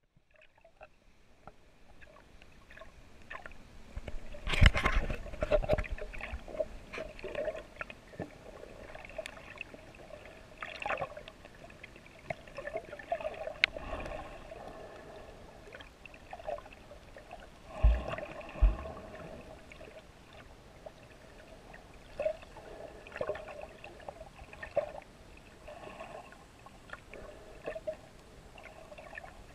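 Muffled underwater sound picked up by a GoPro in its waterproof housing while snorkeling: water gurgling and sloshing with scattered small clicks. A louder rush of water comes about four to five seconds in, and two low thumps come close together a little past the middle.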